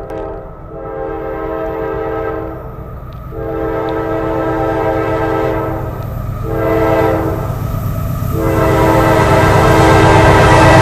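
Locomotive air horn sounding the grade-crossing signal: two long blasts, a short one, then a final long one that is still going at the end, over the low rumble of the approaching train.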